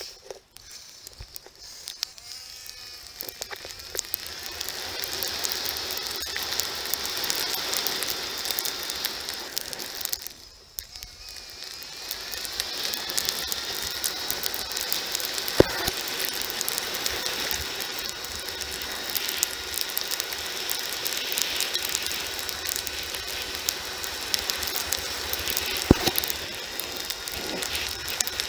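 Moped's small engine running under way, its pitch rising as it speeds up near the start and again about twelve seconds in after a brief easing-off, over a dense, constant rattle.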